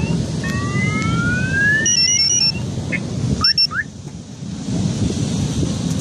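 Car alarms sounding: slow rising whoops that repeat, a stretch of rapid alternating two-tone beeps, and a few short chirps, over a steady low rumble.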